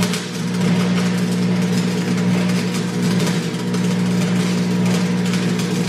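Electric arc welding on steel: the arc crackles and sizzles steadily, over a steady low hum, and cuts off at the end.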